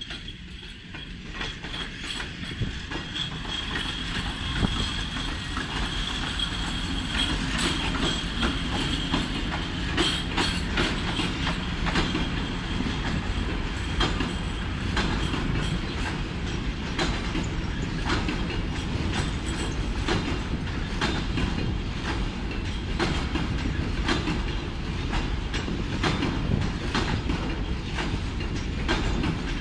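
Freight train hauled by a PKP Cargo electric locomotive passing close by, its long rake of enclosed car-carrier wagons rolling past with steady wheel clatter over rail joints. The sound grows over the first few seconds, then holds steady, with a thin high whine in roughly the first third.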